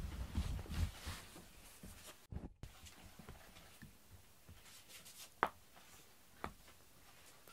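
Rustling and scuffling as a cat grabs a feather wand toy, loud for about the first second and then quiet, with two sharp clicks about a second apart as it holds and bites the toy.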